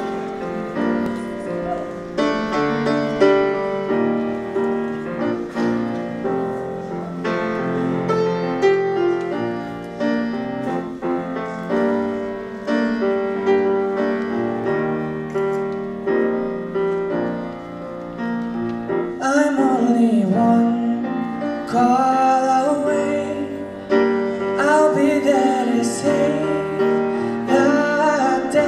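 Grand piano playing a slow introduction of sustained chords; about 19 seconds in a singer comes in, singing over the piano accompaniment.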